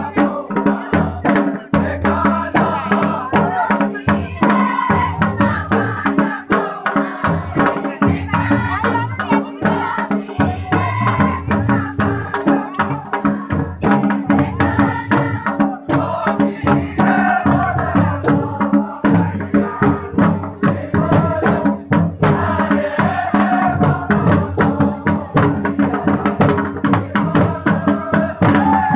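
Jaunsari Harul folk music: drums beating a steady, quick rhythm under group singing, accompanying a line dance.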